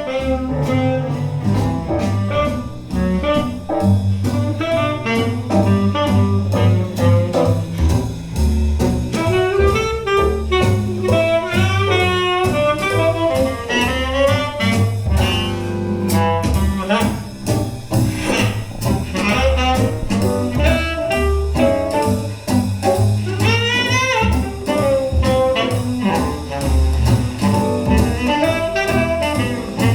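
Instrumental jazz break played back through Tannoy Turnberry GR loudspeakers: a horn, likely saxophone, carries the melody over a low bass line, with a run of rising notes near the end.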